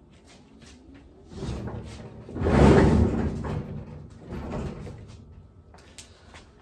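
A wheeled workbench being rolled across the garage floor: its wheels rumble, swelling to a loud peak about two and a half seconds in and then fading. A few sharp knocks come near the end.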